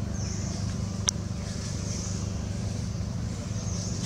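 Steady low rumble of a motor running, with a single sharp click about a second in and a couple of faint high hissing swells.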